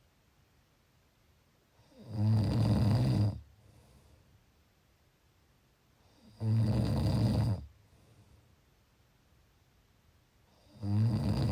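Snoring: three loud, low rattling snores about four and a half seconds apart, each lasting well over a second, with near silence between them.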